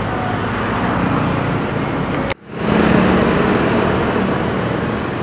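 Steady street traffic noise with motor vehicle engines running. About two seconds in, the sound cuts out for a moment and fades back in.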